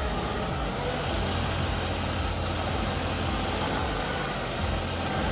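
A heavy machine's engine running steadily at an even pitch.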